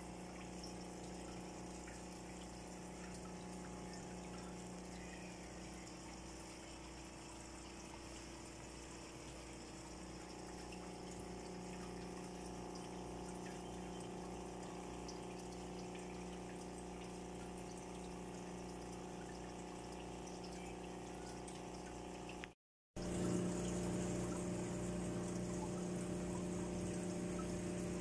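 Aquarium water pump running with a steady hum over the sound of flowing water. It cuts out for a moment about three-quarters of the way through, then comes back louder.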